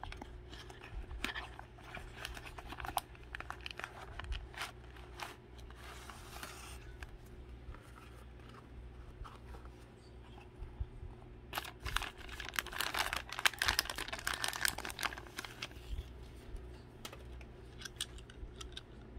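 A small cardboard toy box handled and opened by hand, with scattered taps, scrapes and rustles, then a clear plastic bag crinkling for several seconds about halfway through as a die-cast toy van is unwrapped. A low steady hum runs underneath.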